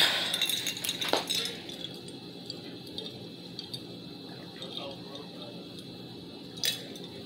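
Glass jar clinking sharply as it is picked up, with another click about a second in, then quiet drinking from the jar and a short knock near the end.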